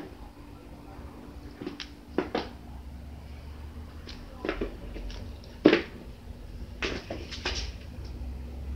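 Kittens jumping and landing on a wooden floor: irregular thumps and taps, about eight in all, with the loudest a little before two-thirds of the way through.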